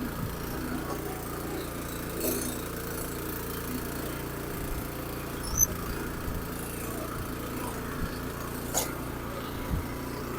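Troy-Bilt Super Bronco tiller's 208cc single-cylinder engine running at a steady speed, with a few light knocks over it. The engine now runs after it would not start on old gas left in it over winter.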